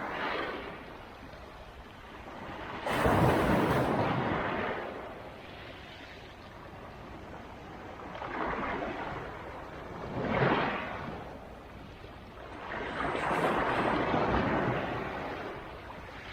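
Black Sea waves breaking on the shore and washing back, a surge every few seconds. The loudest wave comes in suddenly about three seconds in.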